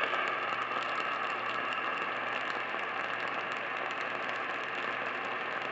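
Steady hiss and static from a radio receiver on a weak signal, with a faint low hum underneath.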